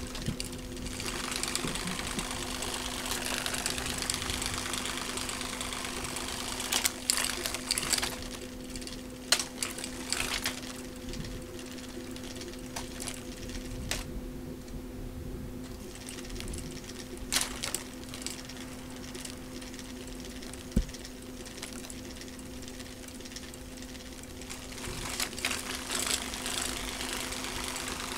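The small battery-powered motor of a rotating butterfly cat toy, whirring with a steady hum. A few sharp clicks and rattles come through, about a third of the way in and again later.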